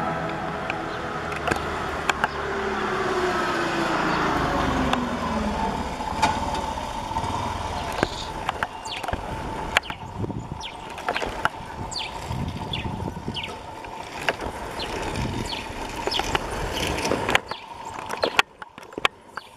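Street traffic: a motor vehicle drives past, its engine note falling over a few seconds, then a steadier engine hum with scattered short clicks and chirps.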